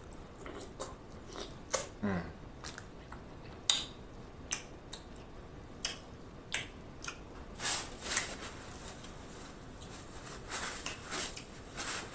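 Close-miked mouth sounds of a person eating boiled crawfish: chewing with scattered wet lip smacks and sharp clicks.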